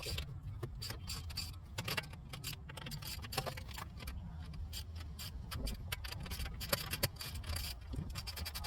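Scattered metallic clicks and clinks from hand tools and lug nuts being handled while a wheel is swapped, over a steady low rumble.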